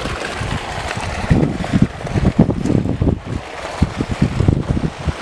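Wind buffeting the microphone in uneven low gusts over a steady outdoor hiss.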